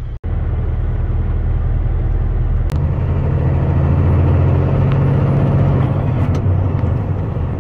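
Semi truck engine and road noise heard from inside the cab while driving, a steady low rumble that grows louder about three seconds in.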